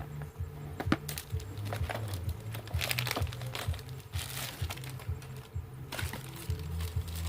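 Background music with a steady bass line, under scattered clicks, cracks and short rustles of things being handled.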